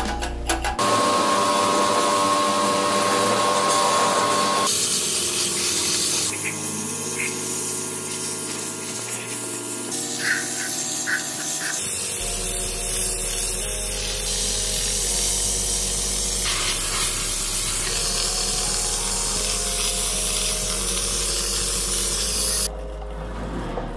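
Sandblasting gun hissing steadily as it blasts an alloy motorcycle wheel; the hiss drops away near the end.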